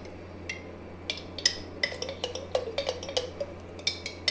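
A spoon scraping and clinking against the inside of a glass jar while scooping out garlic-ginger paste: a string of short, irregular clinks. A steady low hum runs underneath.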